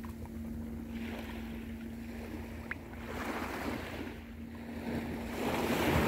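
Small waves breaking and washing on the shore in slow swells, the largest building near the end, over a steady low hum.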